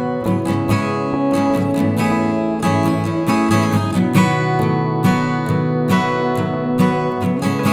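Background music: a strummed acoustic guitar with many quick, evenly paced note attacks.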